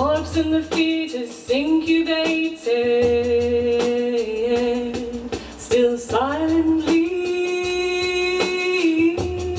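A woman singing slow, long-held notes, over a low electronic backing played from a laptop and controller.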